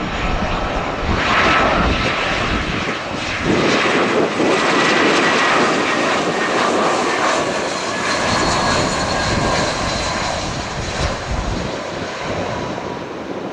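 Jet airliner's twin engines at close range: a loud steady rush with a thin high whine, swelling about a second in and easing off near the end.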